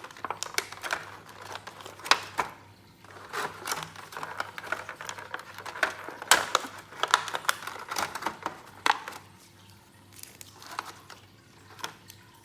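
Plastic packaging crinkling and small plastic toy parts clicking and tapping as they are unwrapped and handled. The clicks are dense for most of the stretch, then thin out to a few scattered taps near the end.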